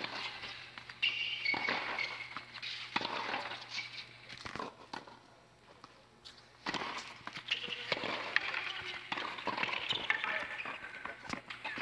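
Tennis play on a hard court: sharp knocks of the ball off rackets and the court, with short high shoe squeaks. A low steady hum runs underneath.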